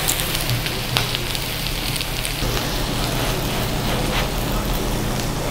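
Thin-sliced pork belly and kimchi sizzling steadily on a cast-iron lid griddle, with a few sharp pops of spitting fat.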